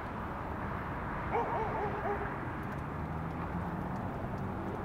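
Steady outdoor background noise, with a short run of quick, quavering animal yips about a second and a half in.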